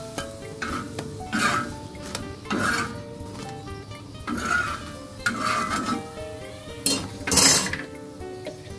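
Steel spatula scraping and knocking on a flat black tawa (griddle) as pancakes are turned and pressed, a stroke about every second, the loudest one near the end. Background music plays underneath.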